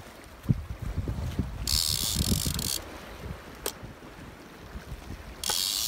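A heavy shark-fishing reel buzzing in two bursts of about a second each, its ratchet clicking rapidly as line runs through it. Wind rumbles on the microphone underneath, with a couple of sharp clicks.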